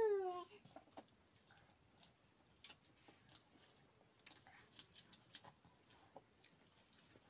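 A small child's crying trails off in a falling wail right at the start, then faint scattered clicks and scrapes of fingers and rice against steel plates and bowls as people eat by hand.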